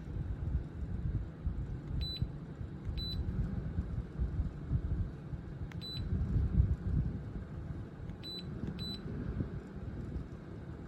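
Air buffeting the microphone as a low, uneven rumble, with about five short high beeps, the last two close together near the end.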